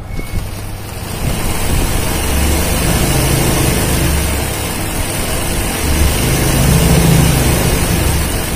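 Zigzag embroidery sewing machine running fast, stitching a satin-stitch leaf with a rapid, steady clatter. It starts at once and gets louder about a second in.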